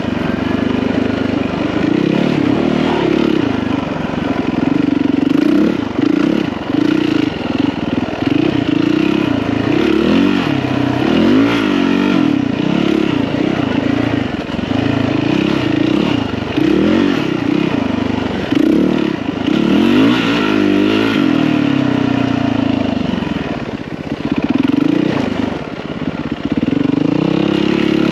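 Yamaha WR450F dirt bike's single-cylinder four-stroke engine being ridden over rough, rocky ground, its revs rising and falling every second or two as the throttle is worked.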